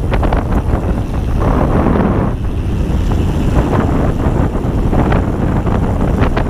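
Ghost Riot mountain bike riding fast down a dirt forest trail: wind rumbling on the microphone and tyres rolling over the ground, with frequent short clicks and rattles from the bike over bumps.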